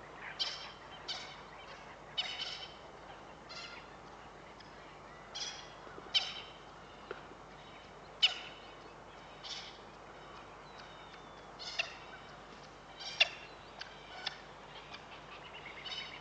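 Short, high-pitched chirping animal calls, each a fraction of a second long, repeating irregularly about once a second. A few stand out louder than the rest.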